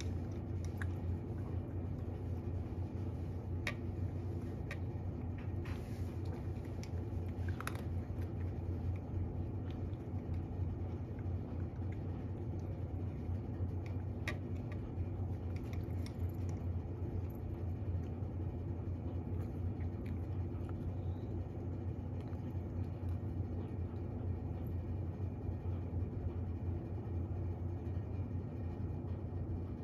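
A cat eating from a ceramic bowl: faint chewing with a few small clicks, over a steady low hum.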